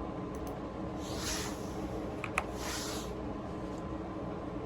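Room tone: a steady low hum, with two soft hissing swells about a second and a half apart and a short click between them.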